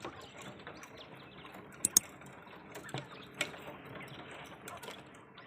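Quail pecking at black soldier fly maggots: irregular sharp ticks of beaks striking the feed and its container, with two louder taps close together about two seconds in.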